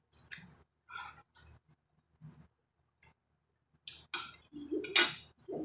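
Spoon and fork clinking and scraping on a ceramic plate of rice and fish, in scattered short sounds, getting louder near the end with some brief mouth and voice sounds.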